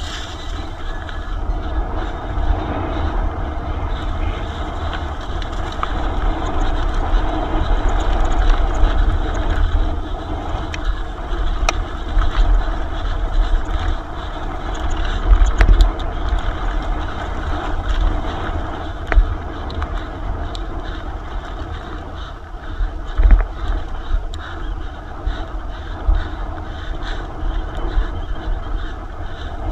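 Electric mountain bike ridden fast down a dirt trail: wind buffeting the camera microphone in a gusty rumble, tyres rolling over the ground and the bike rattling, with sharp knocks from bumps now and then, loudest about halfway through and again a little after two thirds of the way.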